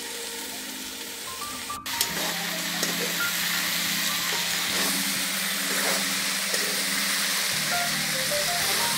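Diced vegetables frying and sizzling in a black iron kadai, stirred with a metal spoon. A sharp click comes about two seconds in, after which the sizzle is louder.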